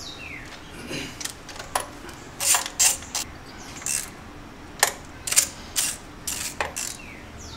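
Irregular metallic clicks and clinks of hand tools and hardware as the fuel rail is fitted back onto the engine with spacer washers under its mounting points, louder clusters about two and a half seconds in and again from about five seconds.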